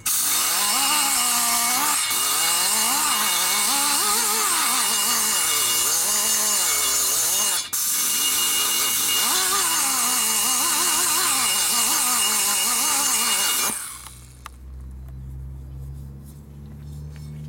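Die grinder cutting metal inside a port of a Harley-Davidson Twin Cam 110 cylinder head, its pitch wavering up and down as the cutter is worked. It cuts out for a moment about halfway through and stops near the end, leaving a low hum.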